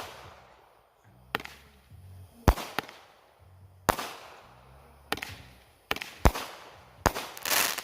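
Mad Dog consumer firework cake firing its shots: a series of sharp bangs, about one a second, each followed by a short crackling tail, with a longer crackling burst near the end.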